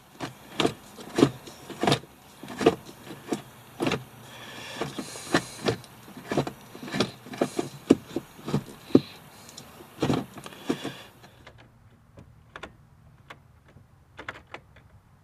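Gear lever of a 2011 VW Jetta TDI's six-speed manual, fitted with a new DieselGeek short shifter, being run through the gears: a string of clunks and clicks, about two a second, as the lever goes into and out of each gear. The clunks stop about eleven seconds in, leaving a few faint clicks.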